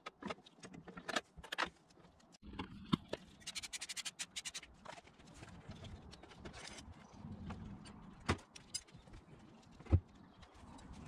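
Scattered light metallic clicks and knocks as a Brembo brake caliper is stripped by hand in a plastic tub, its pins, shim and pads clinking, with a quick rattle a few seconds in and two sharper knocks near the end.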